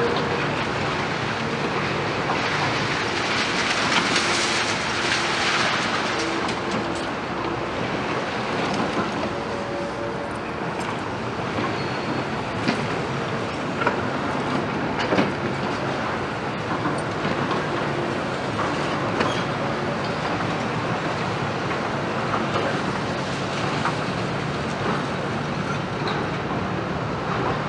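Demolition excavators (a Liebherr R 936 and a CAT 330F) working a pile of broken concrete and rebar: diesel engines running steadily under load, with rubble scraping and clattering and a few sharp clanks about halfway through.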